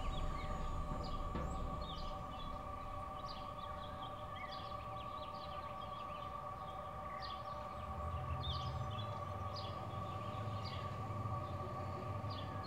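Eerie held drone of several steady tones from a drama score, with many short bird chirps scattered over it and a low rumble underneath.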